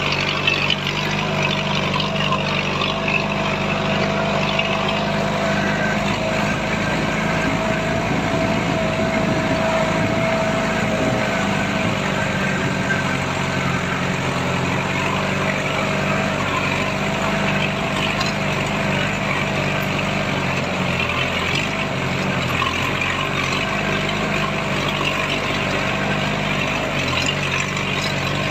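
Off-road vehicle engine running steadily at low revs while crawling up a rough dirt hill track.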